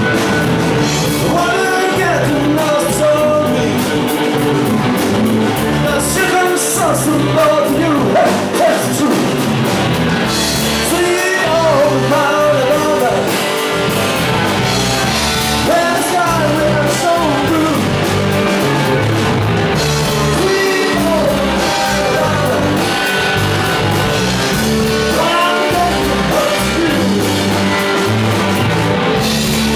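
Live rock band playing: electric guitar, electric bass and drum kit, with a singer over them.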